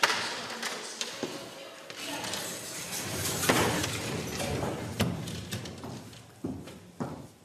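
A door latch clicks, then a classroom full of people get to their feet: chairs scraping and knocking, and shoes shuffling on a wooden floor. The commotion is loudest about three and a half seconds in and dies down toward the end.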